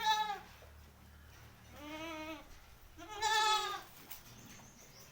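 Goats bleating: three wavering calls, one at the very start, a softer, lower one about two seconds in, and the loudest about three seconds in.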